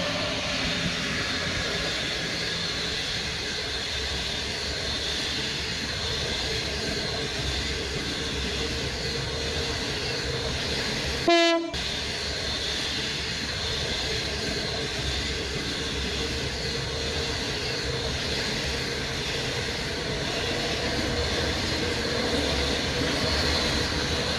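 Passenger train running along the track with a steady rumble and rail noise. About halfway through comes one short, loud horn blast, cut off by a split-second gap.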